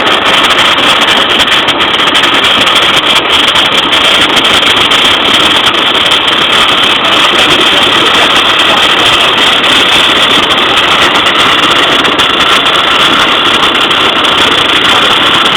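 MIG welding arc crackling steadily and continuously while a T-weld root pass is laid, joining two pieces of metal in a T.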